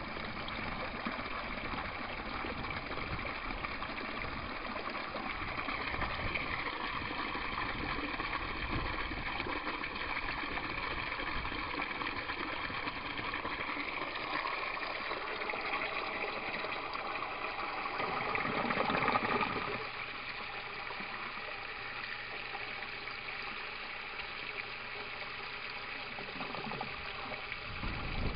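Water gushing from an aquaponics U-siphon's outlet pipe into a tub as the siphon drains the grow bed. The flow swells about two-thirds of the way through, then drops suddenly to a quieter steady flow as the siphon nears breaking.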